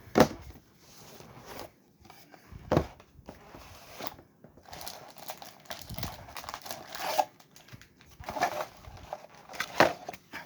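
Plastic shrink wrap being torn and crinkled off a sealed cardboard trading-card box. There is a sharp snap just after the start, then irregular bouts of crinkling and tearing.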